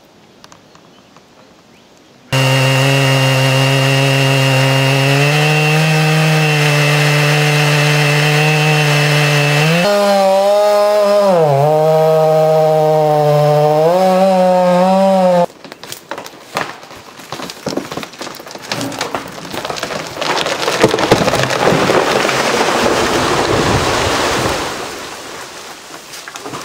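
Chainsaw starts about two seconds in and runs at full throttle, cutting into a large tree trunk, its pitch dropping several times as it bogs down in the cut. It stops abruptly, and a long stretch of loud, irregular cracking and crashing of wood follows as the cut section of the trunk gives way and falls, then fades.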